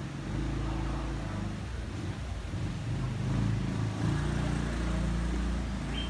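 Ducati Hypermotard 950's L-twin engine running through an Akrapovic GP exhaust, its pitch rising and falling as the throttle is worked.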